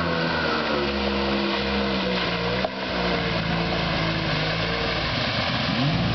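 1995 Polaris SL750 jet ski's two-stroke twin engine running under heavy throttle, its pitch falling and rising as the rider works the throttle to pop the nose up, over the hiss of jet spray and water. A brief click and momentary dip come about two and a half seconds in, and the pitch rises again near the end as the craft passes close.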